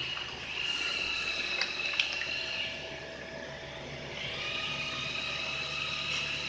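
Vacuum membrane laminating press running, a steady rushing hiss with a high whine that fades out briefly in the middle and returns. One sharp click about two seconds in.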